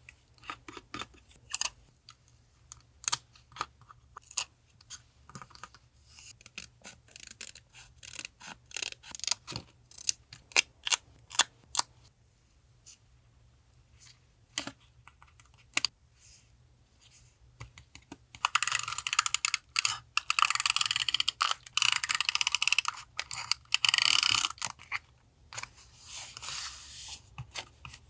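Paper journaling materials being handled on a desk: scattered light taps and clicks, then several seconds of dense paper rustling and rubbing about two-thirds of the way through, followed by more taps.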